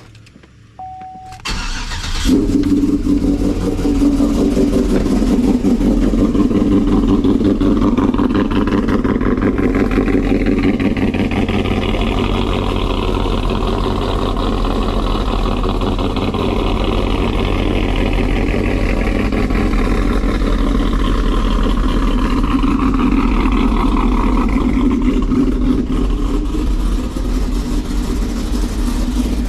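A short beep, then a cammed LS V8 in a GMC Sierra pickup cranks and fires on a cold start through long-tube headers and Corsa Extreme mufflers. It settles into a loud, steady idle.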